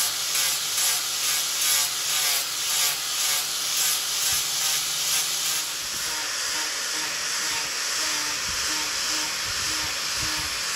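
Electric angle grinder with a sanding disc running against a buffalo-horn knife handle, a steady abrasive rasp over the motor's whine. For the first five seconds or so it swells and eases about once a second as the disc is stroked along the handle, then it runs steadier.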